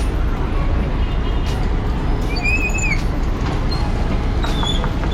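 Steady low engine drone aboard a vehicle ferry, with a few short high chirps over it, the clearest about two and a half seconds in.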